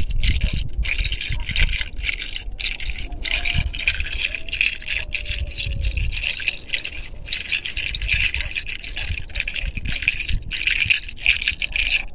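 Close rustling and rubbing of a bunch of roses brushed over a person's head, hair and clothing near a clip-on microphone. It is a continuous scratchy rustle with many brief breaks, over a low rumble of wind on the microphone.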